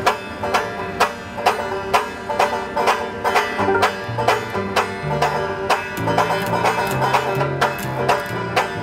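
Instrumental intro of an alt-country tune: two banjos picking over upright bass, with a small drum struck about twice a second to keep a steady beat. The bass line becomes more prominent about four seconds in.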